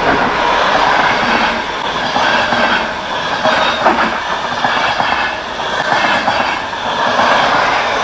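Train rolling along the track, its wheels clicking over the rail joints, with faint high wheel squeal at times.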